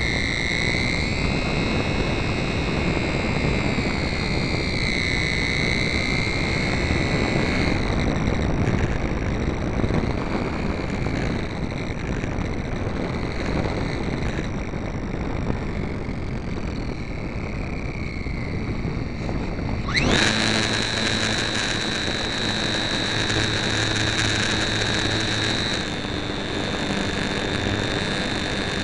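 HobbyZone Super Cub RC airplane's electric motor and propeller whining, heard from a camera on board, with wind rushing over the microphone. The whine wavers in pitch, then jumps sharply to a higher, steady whine about twenty seconds in as the throttle is opened.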